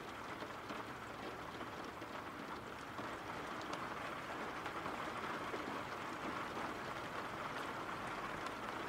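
Steady rain ambience: an even hiss of rainfall with scattered patters of individual drops, a little louder from about three seconds in.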